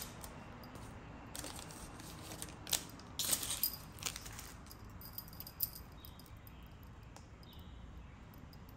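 Hands handling Panini Prizm trading cards and their foil pack wrappers: a few short rustles and crinkles, loudest about three seconds in, then only faint shuffling of cards.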